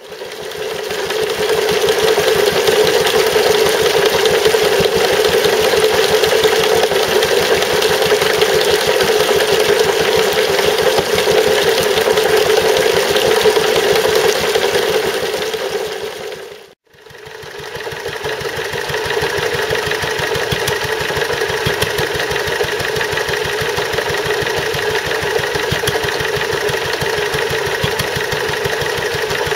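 Single-cylinder air-cooled Wolseley WD2 stationary engine running steadily, belt-driving a Stuart Turner water pump that pours water into a tub. The pump, with a new big-end bearing, still has a knock that the owner cannot trace and wonders could be a valve. The sound breaks off briefly about halfway through and resumes.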